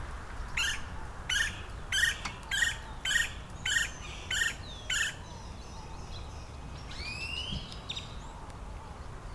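Gila woodpecker calling: a series of about eight short, harsh notes evenly spaced a little over half a second apart, stopping about five seconds in, after which faint chirps of other birds follow.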